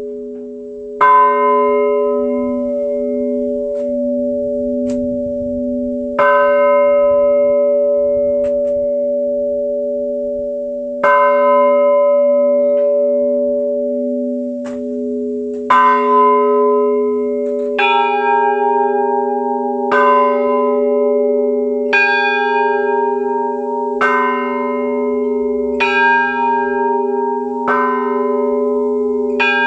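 Russian church bells ringing the Theophany water-blessing perezvon. A large bell, the blagovestnik cast at Mikhail Stukolkin's St Petersburg foundry, is struck about every five seconds, and its deep hum rings on between strokes. About two-thirds in, the strokes quicken to about one every two seconds, and higher, pulsing bell tones join.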